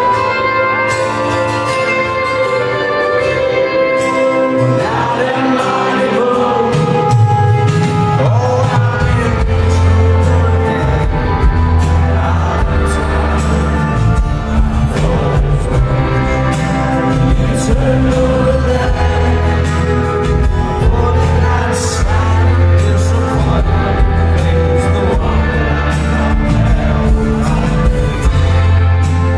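Live rock band heard from the audience in an arena: a singer with strummed acoustic guitar, joined by a deep bass line about seven seconds in.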